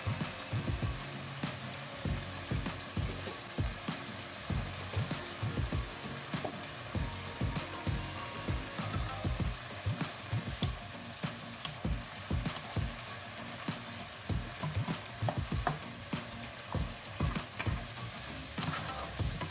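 Vegetables sizzling in a hot wok as they are stir-fried, with a wooden spatula knocking and scraping against the pan in quick, irregular strokes.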